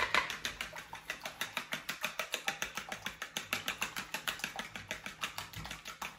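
Fork whisking eggs in a plastic bowl: a fast, even run of light clicks as the tines strike the bowl.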